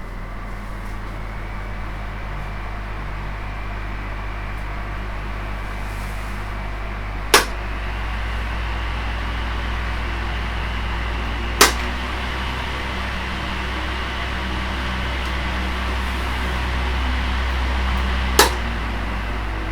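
Electric fan running steadily with a low hum. Three sharp clicks come about 7, 12 and 18 seconds in, and the fan's sound shifts slightly after each.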